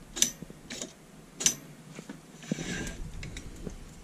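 Light metallic clicks and clinks from handling a Titan Trains truck and its hand-pulled brake linkage: a few sharp ticks spaced out, the loudest about a second and a half in, then a short scraping rustle near the end as the truck is turned over on the bench.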